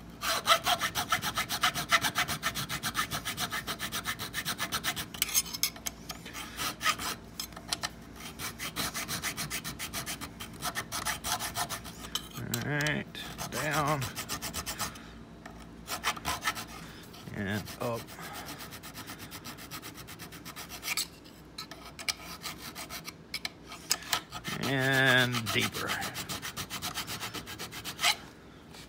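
Hand file rasping back and forth across the bit of an antique bit key clamped in a vise, in rapid repeated strokes with a few short pauses. The strokes are deepening a cut in the key's bit so that it clears a lever in the lock.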